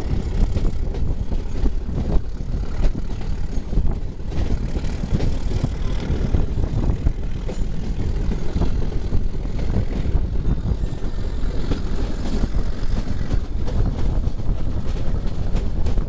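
YDM-4 meter-gauge diesel locomotive's ALCO 251 six-cylinder engine idling, a steady low rumble.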